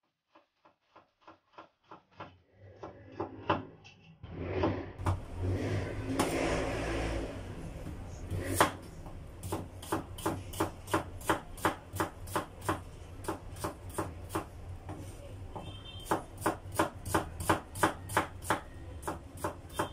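Chef's knife slicing a red onion on a plastic cutting board: steady knocks of the blade on the board, about two to three a second, fading in over the first few seconds. A low rumble swells and fades about a third of the way in.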